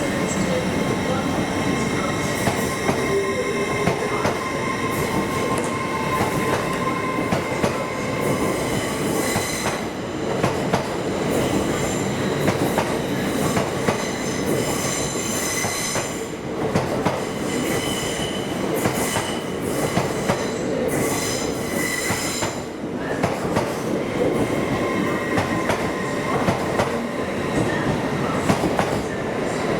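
A train moving through the station, its wheels squealing on the rails in steady high tones, with many clicks over the rail joints.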